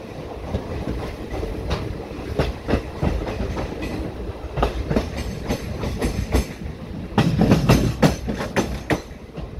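Wheels of a moving passenger train coach clattering on the track, heard from the open doorway over a steady running rumble. A louder run of clacks comes about seven seconds in.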